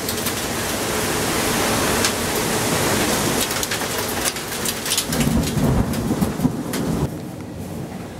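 Heavy downpour in a thunderstorm, a dense hiss of rain with many sharp ticks of drops. A low rumble of thunder comes in about five seconds in and lasts about two seconds. The noise falls off about a second before the end.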